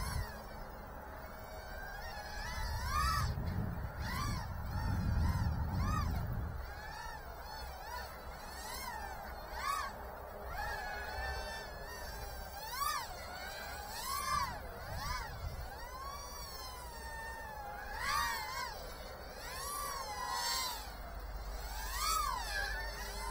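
Tiny 1S FPV quadcopter with 2-inch props flying, its motors and props whining in repeated rising and falling glides as the throttle is worked, about every second or two. A low rumble from about 3 to 6 seconds in.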